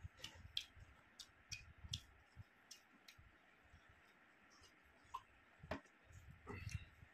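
Quiet eating sounds from chewing and from fingers mixing rice and curry by hand: a run of sharp little clicks and smacks that thins out in the middle and picks up again near the end.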